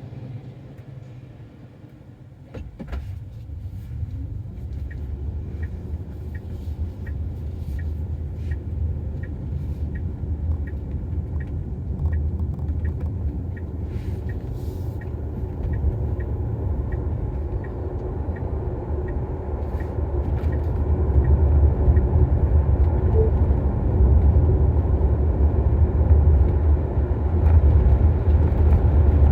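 Road and tyre rumble inside the cabin of a Tesla Model Y, a steady low drone that grows louder as the car gathers speed. For a stretch in the first half a light regular tick sounds, a bit under two a second.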